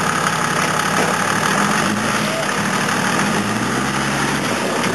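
Toyota Land Cruiser 80's engine working under load as the truck crawls up a steep rutted dirt climb, its note rising and falling about two seconds in and again for over a second near the end.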